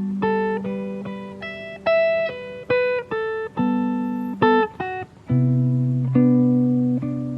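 Acoustic guitar played fingerstyle: a run of single plucked melody notes over a ringing bass note, then a few slower, longer-held low notes about five seconds in.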